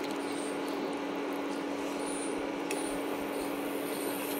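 A steady low hum over an even hiss, with one faint click about two and a half seconds in.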